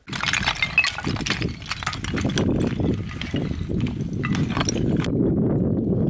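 Loose talus rocks clicking and clattering as a climber scrambles down through them, with the clatter stopping about five seconds in, over a steady low rumble.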